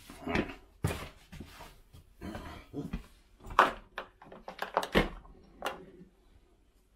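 Irregular clicks, taps and light knocks of a power cord and its 12-volt socket plug being handled, with the sharpest clicks in the middle.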